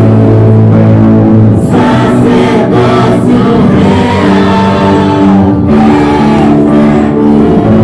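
Gospel praise music: voices singing together over sustained instrumental accompaniment with held low notes.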